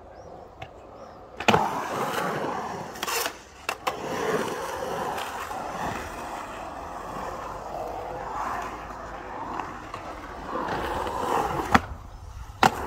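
Skateboard wheels rolling through a concrete bowl, a steady rumble that starts with a sharp clack about a second and a half in. A couple of clacks come around three to four seconds, and a loud sharp knock comes near the end.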